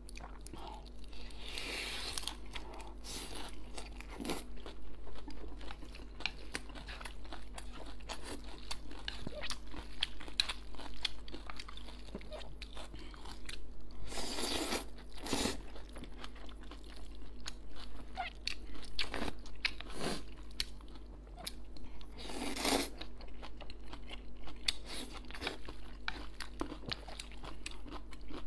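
Close-miked eating of stir-fried wide flat noodles through a clip-on microphone: steady chewing with wet mouth clicks, and louder slurps of noodles about two seconds in, at about fourteen seconds and at about twenty-two seconds.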